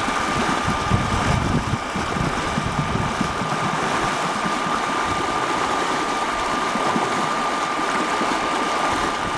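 Yardmaster side-mounted effluent stirrer running in a large slurry tank: a steady machine drone with a constant high whine over an even wash of noise. A low rumble underneath eases about three seconds in.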